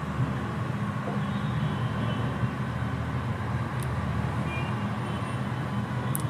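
A steady low mechanical hum and rumble over a pan of green chillies in yogurt masala being stirred with a spatula.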